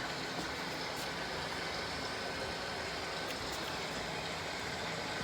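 Humidifier running: a steady rush of fan noise with a faint steady high whine.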